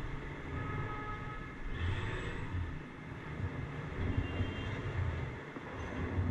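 Street traffic heard from a bicycle riding among cars: a low, uneven rumble of engines and tyres that swells and fades, with a few faint brief high squeals.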